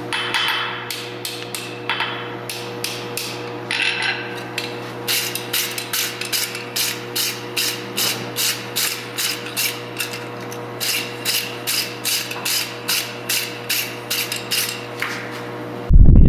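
Hammer blows on steel at about two to three strikes a second, over a steady hum, with a few scraping sounds before the hammering starts. The sound cuts abruptly to a loud rushing noise at the very end.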